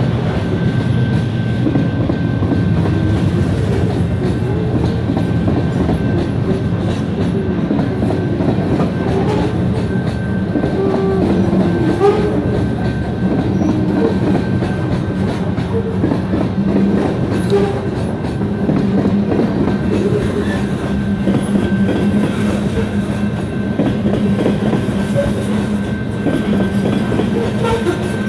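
Coal train's freight cars rolling steadily past: a continuous rumble of steel wheels on rail with clickety-clack over the rail joints and occasional brief wheel squeals.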